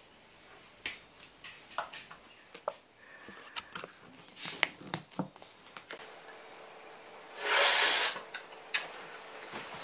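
Small clicks, taps and rustles of wooden chopsticks and a paper Cup Noodle lid being handled, then, about three quarters of the way through, one loud slurp of instant noodles lasting under a second.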